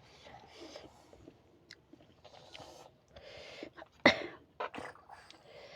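Close-up eating sounds: chewing and wet mouth clicks with soft breaths, and one sharper, louder noisy burst about four seconds in.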